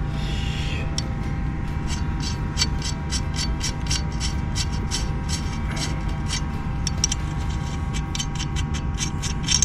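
Light, irregular clicking and ticking from a used Subaru VF24 turbocharger being turned and fingered by hand, over a steady low hum. The seller judges the turbo's sound fine, with no rattle.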